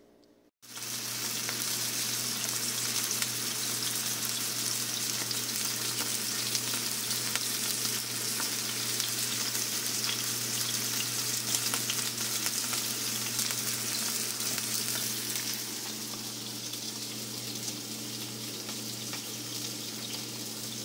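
Seasoned elk steak pieces sizzling and crackling in olive oil in a non-stick frying pan on a stovetop, starting suddenly about half a second in and going on steadily, with a steady low hum underneath.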